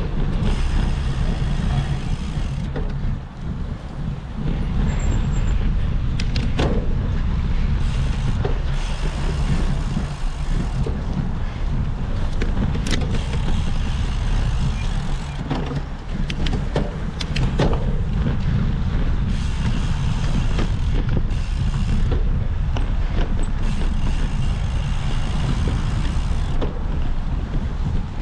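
Steady wind rumble on the microphone and tyre noise from a cyclocross bike being ridden over rough ground, with scattered short knocks and rattles from the bike.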